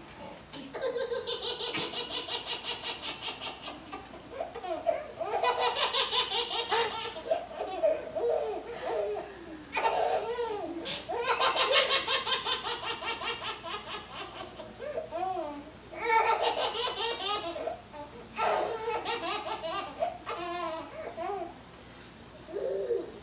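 A baby laughing hard in about half a dozen bouts of rapid, high-pitched belly laughs, with short breaths and pauses between the bouts.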